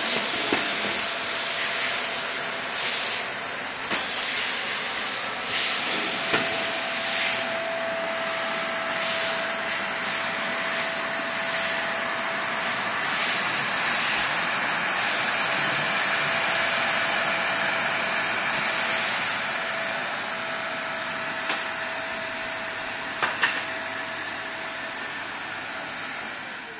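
Homemade wet vacuum, a household vacuum cleaner drawing a vacuum on an old drum fitted with a long pool hose, running steadily. It makes a hissing rush of air with a steady hum and a high whine. The rush swells and changes now and then in the first ten seconds, and two short clicks come a little before the end.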